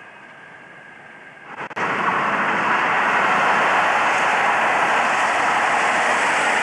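A British Rail Class 47 diesel-electric locomotive hauling passenger coaches passes close at speed: a loud, steady rush of engine and wheel-on-rail noise. It starts abruptly about a second and a half in, after faint background sound.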